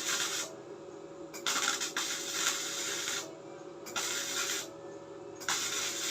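Daiden 135XL MIG welder's arc crackling in repeated short bursts of a second or two each, as the torch trigger is pulled and released, over the machine's steady hum.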